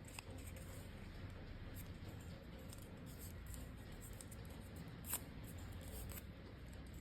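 Faint rustling and small crackles of die-cut cardstock being handled and folded along its score lines, with one sharp tick about five seconds in.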